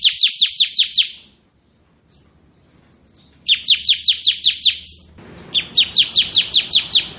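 Bar-winged prinia (ciblek) singing its rapid "ngebren" drilling trill: three bursts of quick, evenly spaced, falling high notes, about eight a second, the last over a rising background hiss.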